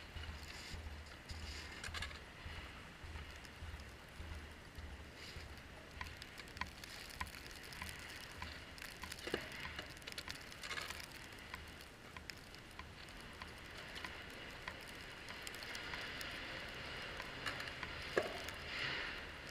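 Vehicle moving slowly through snow: a low, pulsing rumble with a steady hiss and scattered small clicks and crunches.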